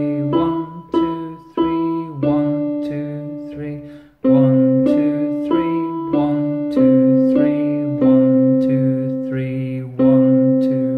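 Yamaha portable electronic keyboard playing a simple one-hand melody on the notes C, D and E in waltz time, single notes struck about every half second with some held longer.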